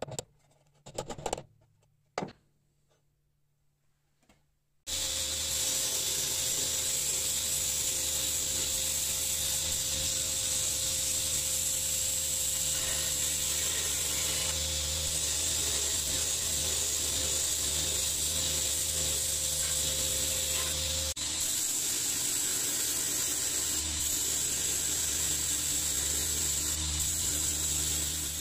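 A few light knocks, then a belt grinder running steadily as the pinned wooden handle scales and steel tang of a cleaver are ground against the belt, a loud steady hiss over a low hum.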